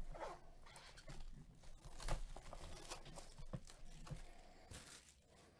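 Gloved hands tearing and crinkling the plastic wrap off a trading-card hobby box, with scattered scrapes and light taps on the cardboard. The loudest tear comes about two seconds in, and the sounds fade near the end.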